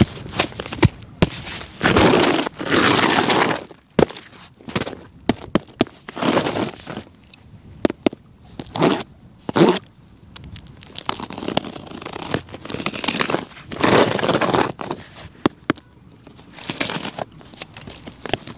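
A cardboard shipping box being opened by hand: packing tape peeled and cut, and cardboard flaps pulled and rubbed. Several bursts of tearing and scraping, a second or two each, come between many small clicks and taps.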